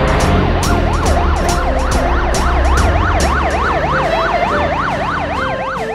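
Police car siren sound effect in fast yelp mode: a wailing tone that sweeps up and down about three times a second, starting about half a second in.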